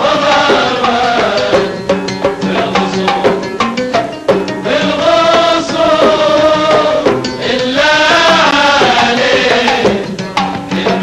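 A group of men singing a traditional Kuwaiti sawt song to a steady beat of hand-held frame drums.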